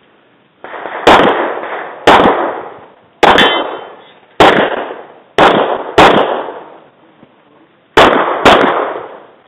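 Eight pistol shots fired at an uneven pace, a pause of about two seconds before the last quick pair, each shot trailing off in a long echo.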